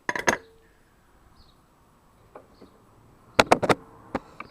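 Sharp metallic clinks and knocks of hand tools and parts being handled: two at the start, then a quick run of four about three and a half seconds in and one more shortly after, some leaving a brief ring.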